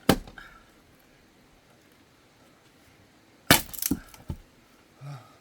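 Two axe blows splitting firewood: a sharp crack right at the start, then a second strike about three and a half seconds in, followed by a short clatter of knocks as the split pieces fall. The wood splits cleanly.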